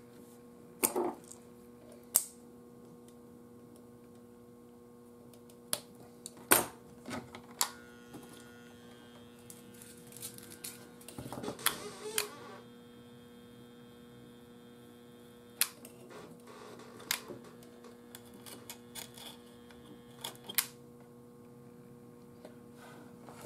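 Scattered small clicks and taps of wire and a soldering iron being handled on a metal radio chassis, over a steady low electrical hum.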